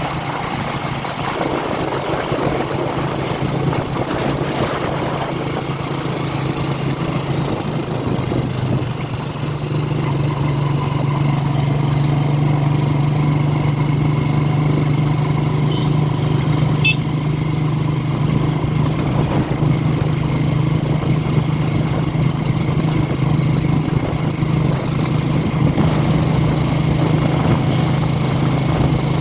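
The engine of the vehicle carrying the camera runs steadily as it travels along the road, with road and wind hiss over it. It grows a little louder about ten seconds in. There is a brief click about two-thirds of the way through.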